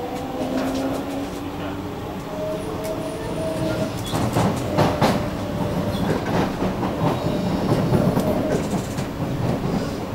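Cabin of a Kawasaki-CSR Sifang C151A metro train under way. Steady whine from its IGBT-VVVF traction inverter and motors is heard in the first few seconds. About four seconds in, the wheels start clattering over rail joints and points with a dense run of clicks over the running rumble.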